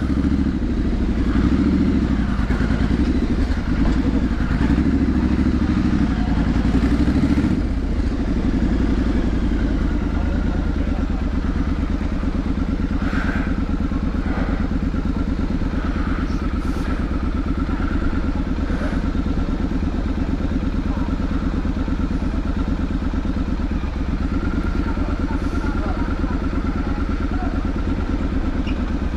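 Triumph Street Scrambler 900's parallel-twin engine and exhaust running as the bike is ridden. It is louder for the first several seconds, then settles about eight seconds in to a lower, even beat that holds for the rest.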